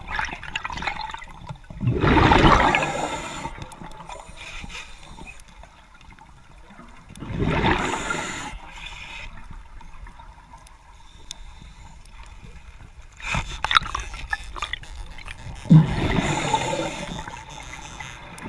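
Scuba diver's breathing heard underwater: three gushing bursts of exhaled bubbles from the regulator, about every five or six seconds, with a quieter hiss between. A few sharp clicks come a little after the middle.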